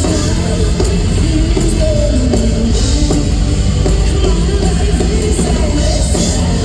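Live pop-rock band playing in an arena: drums and bass with a heavy, dense low end under a wavering melody line.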